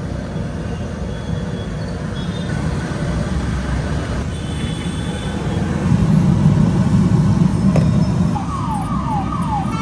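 Steady road traffic rumble, swelling about six seconds in. Near the end a falling electronic tone starts repeating about twice a second.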